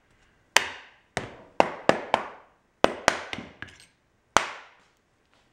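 Rubber mallet striking the front end cover of a Dayton 2 hp electric motor about ten times in uneven groups, each blow ringing briefly, driving the cover home over the new front bearing.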